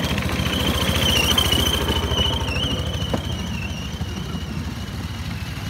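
Bamboo train (norry) engine running with a rapid low pulsing, a high wavering whine over it and a single click about three seconds in.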